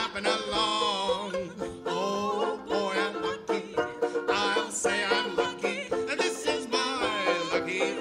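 A woman and a man singing a 1920s-style song, accompanied by a strummed banjo ukulele and an upright bass.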